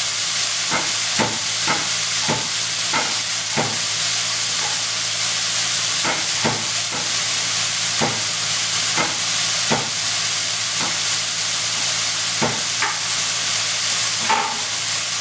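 Ground pork, diced carrot and baby corn frying in a nonstick wok: a steady sizzling hiss with irregular sharp pops about once a second, over a faint steady low hum.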